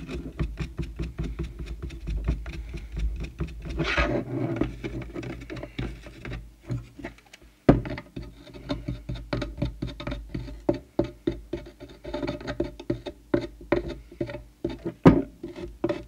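Fibreglass brush pen scrubbing a corroded microphone connector: a fast run of short scratching strokes, with a couple of sharp knocks about eight and fifteen seconds in.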